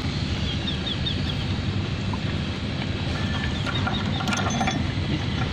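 Steady low engine rumble of the tug, with a few light metallic clinks of the fender chain and shackle being handled about four and a half seconds in. Faint quick high chirps sound twice in the background.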